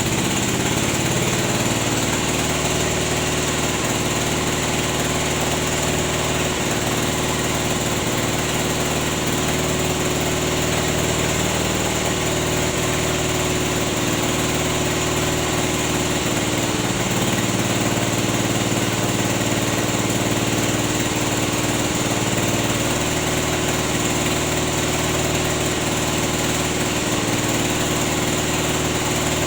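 Engine-driven rubber latex press, a roller mill for pressing latex sheets, running steadily with an even mechanical drone. Its lower note shifts slightly about halfway through.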